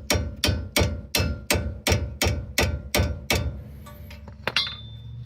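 Hammer repeatedly striking a small wrench to tighten a brake caliper bolt: sharp metal-on-metal blows, about three a second, that stop about three and a half seconds in. A single metallic clink with a brief ring follows near the end.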